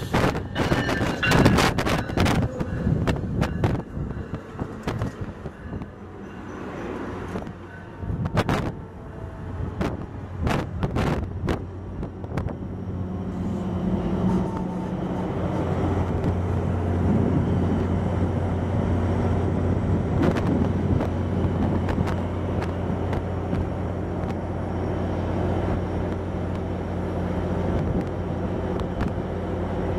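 Amtrak passenger train running past, with sharp clicks and knocks of the wheels on the rails. About halfway through, the steady low drone of the train's diesel locomotive comes in and holds to the end.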